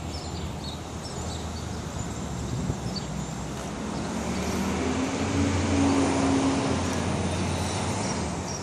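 A heavy engine running, growing louder to a peak about six seconds in and then easing off slightly, over steady town traffic noise.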